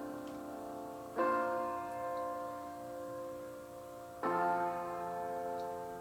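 Piano music played through a Surface Book 2 laptop's built-in speakers and picked up by a microphone. Sustained chords sound throughout, with a new chord struck about a second in and another about four seconds in, each fading slowly.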